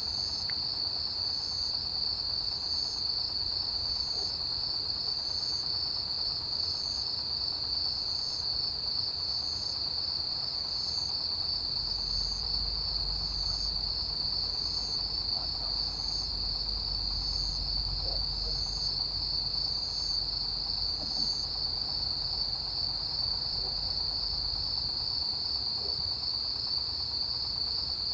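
Autumn chorus of crickets and other grass insects: one steady high trill runs on without a break, overlaid by a higher chirp repeating about once a second and fainter, quicker pulsing above.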